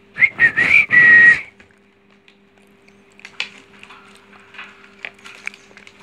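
Parakeet giving a quick run of shrill whistled calls, ending in one longer held whistle about a second in. After that only light scattered clicks and taps remain.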